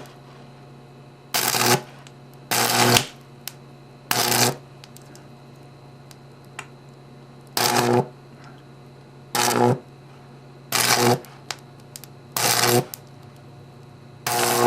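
High-voltage arcing from two unballasted microwave-oven transformers burning across a remote control's circuit board: about eight separate buzzing arcs, each about half a second long and a second or two apart, with a faint steady hum between them.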